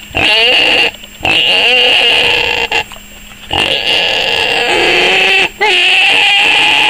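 A pet animal making long, loud, drawn-out whining squeals, four in a row with short breaks between them, the pitch wavering in places and held steady in the last one. It is begging for a treat.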